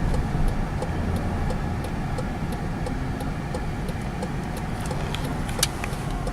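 Car on the move: steady low road and engine rumble, with faint light ticking about two or three times a second.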